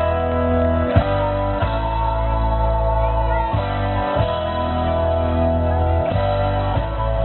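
Live backing band playing guitar and bass chords that change every second or two, without vocals: an instrumental lead-in between songs.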